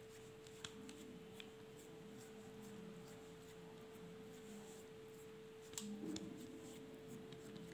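Fingers pressing and patting soft rice-flour dough flat on a greased banana leaf: faint soft taps and leaf rustles with a few small clicks, a little louder about six seconds in. A steady low hum runs underneath.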